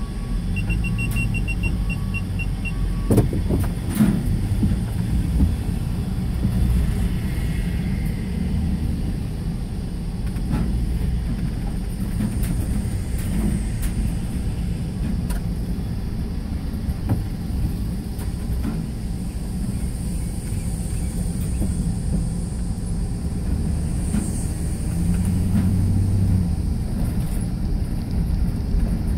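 Inside a car driving slowly: a steady low rumble of engine and tyres, with a quick run of short high beeps in the first couple of seconds and a few knocks about three to four seconds in.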